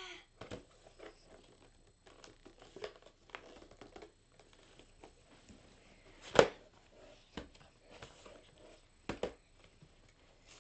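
Plastic toy packaging being handled: scattered crinkles, rustles and clicks of a clear blister pack, with one loud sharp knock a little past the middle and a quick double knock a few seconds later.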